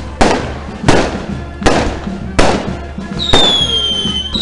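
Fireworks going off in a regular series: five loud bangs about three-quarters of a second apart, each with a ringing tail. Near the end, a high whistle starts up and falls slightly in pitch.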